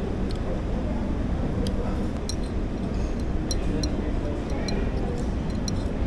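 Restaurant dining-room ambience: a steady low hum with indistinct background voices. About a dozen light clinks of tableware are scattered through it, mostly after the first second or so.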